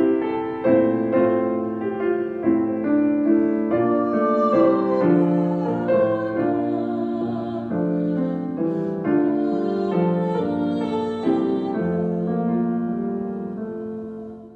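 Piano playing a slow passage of held chords, a new chord struck about every half second to a second; it fades and stops at the very end.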